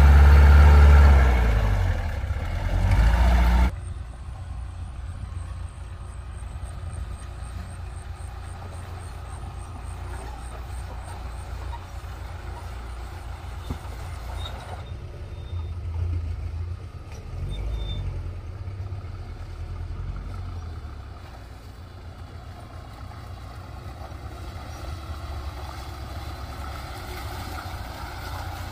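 Mahindra CJ3B jeep's engine revving hard for the first few seconds, then cut off abruptly, leaving a steady low engine rumble that swells briefly a couple of times.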